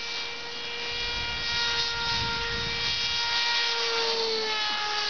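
Radio-controlled model airplane's motor and propeller on a high-speed pass: a steady high-pitched buzz that grows louder, then drops in pitch as the plane goes by near the end. Wind rumbles on the microphone in the middle.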